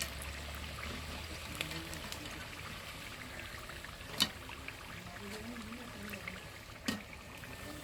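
Chicken potato samosas deep-frying in hot oil, a steady bubbling hiss, with two sharp clicks, one about halfway through and one near the end.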